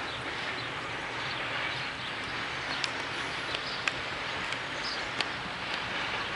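Loaded coal wagons of a freight train rolling away: a steady rolling hiss with several sharp clicks from the wheels in the middle, and birds chirping.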